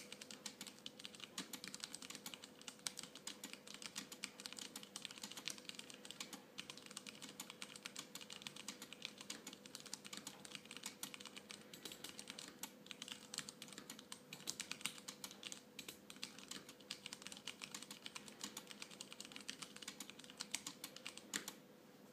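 Typing on a Poker II mechanical keyboard with Cherry MX Brown switches and no case, a bare board: fast, continuous key clacks that stop about a second before the end, over a faint steady hum.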